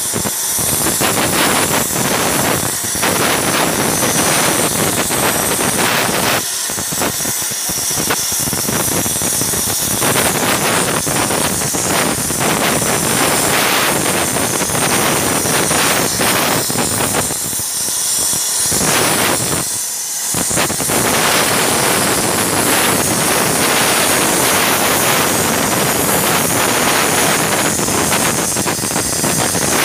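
Hand-held plasma torch cutting through metal plate: the arc and its jet of air make a loud, steady hiss, easing briefly a few times.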